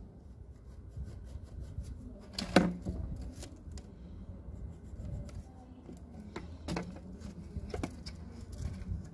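Handling noises from marking a PVC pipe with a tape measure: scattered clicks and light knocks as the tape and pipe are shifted and the pipe is turned on the concrete, with the sharpest click about two and a half seconds in.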